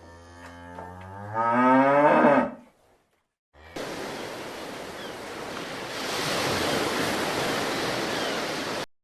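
A cow mooing: one long call that swells louder about halfway through and ends after about two and a half seconds. After a short gap comes a steady rushing noise lasting about five seconds, which stops abruptly.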